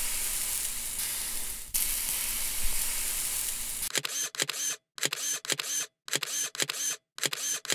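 An even sizzling hiss, like food frying, that stops about four seconds in. It is followed by a quick run of camera-shutter clicks, about two a second.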